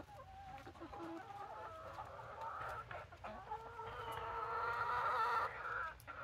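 Chickens clucking and calling, several at once, building to a longer, louder run of overlapping calls from about three and a half seconds in that breaks off near the end.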